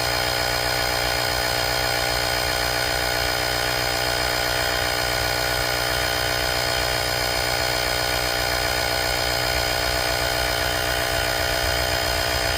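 VACASSO portable tire inflator running steadily with an even mechanical buzz as it pumps up a car tire toward its 36 psi auto shut-off setting.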